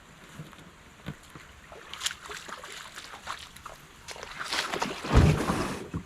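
Kayak being paddled: the paddle dips, water sloshes against the hull, and there are scattered light knocks. A louder, low rush comes near the end.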